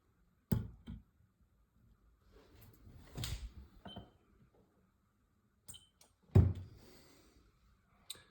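Knocks and clicks from a lead-filled plastic ball being set up and dropped in a freefall timing rig, about half a dozen in all, the loudest a low thud about six seconds in.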